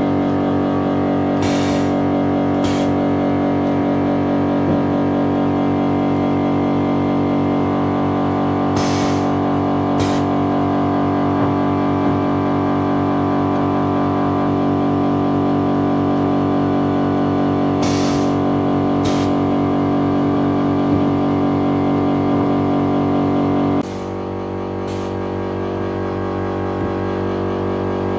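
Automatic LED-bulb tikki-fitting machine running: a steady electrical hum, with pairs of short pneumatic air hisses about a second apart recurring roughly every nine seconds as it cycles. About 24 seconds in, the hum drops and changes tone.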